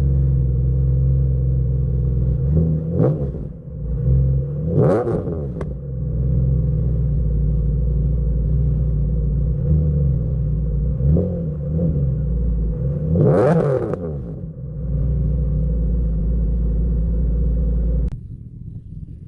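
Infiniti G35's 3.5-litre V6 exhaust with ISR resonated test pipes idling, then blipped several times: short revs that rise and fall back to idle, the largest about 13 seconds in. The idle cuts off sharply near the end.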